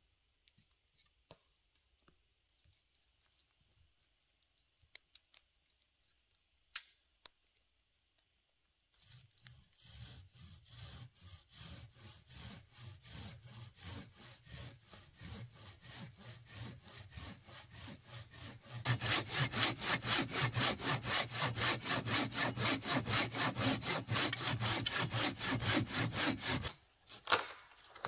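Small hand saw cutting through a dead, barkless tree trunk in fast, even back-and-forth strokes. The strokes begin after a quiet start, grow clearly louder about halfway through as the cut deepens, and stop shortly before the end with one brief knock.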